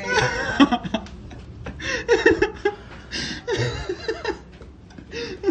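Laughter mixed with short surprised exclamations.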